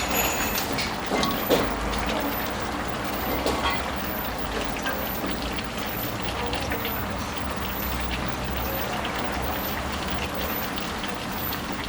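Watery chilli-paste curry with catfish bubbling and simmering in the pan, a steady rain-like hiss, with a few light knocks in the first seconds as the Thai eggplants and pea eggplants go in.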